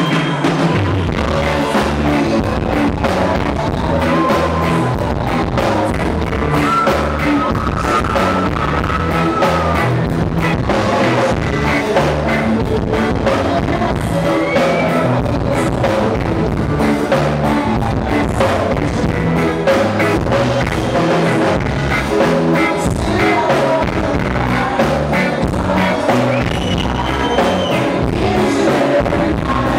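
Live reggae-rock band playing: a male lead singer on microphone over electric guitar, bass and drum kit, with a steady beat and a pulsing bass line.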